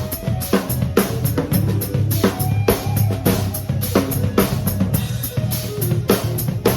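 Instrumental rock trio playing: a drum kit keeps a steady beat of kick, snare and cymbals, under a bass guitar line and guitar.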